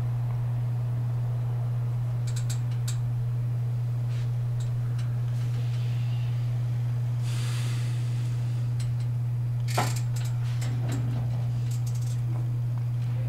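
Manual wheelchair's metal frame and footrest clicking and rattling as it is manoeuvred and handled, with one sharper metallic click about ten seconds in, over a steady low hum.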